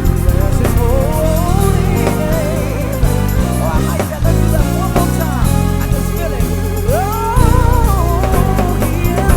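Gospel band playing, with a heavy electric bass groove and drums under a lead melody line that slides and wavers in pitch.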